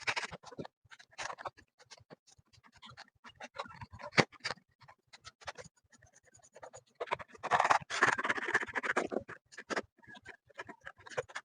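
Irregular clicks, knocks and scrapes of refrigerator-stand parts and screws being handled during assembly, with a longer stretch of scraping and rattling about seven seconds in.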